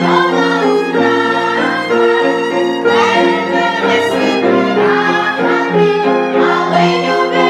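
Live bowed string music with a cello among the instruments, playing a line of held notes that change about once a second.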